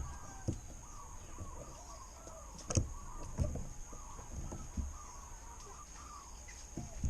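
Spotted dove cooing in a repeated series of short, arched coos, with a few sharp knocks mixed in.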